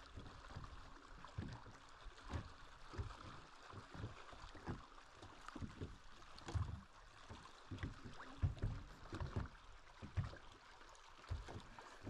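Irregular knocks and bumps from handling gear aboard a small fishing boat, over a steady wash of wind and water.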